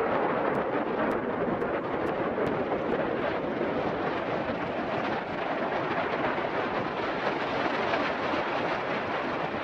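Steady rush of wind buffeting the action camera's microphone, mixed with the roar of the kick scooter's wheels on asphalt, during a fast downhill run of about 76 km/h.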